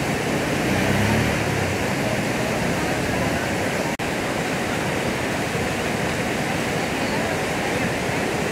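Steady rushing noise of flowing canal water, with a brief dropout about four seconds in.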